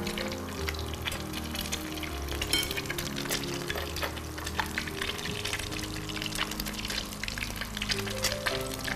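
Background music with long held notes, over a dense light crackling and occasional splashing as dry kellaj pastry sheets are handled and dipped into a bowl of milk.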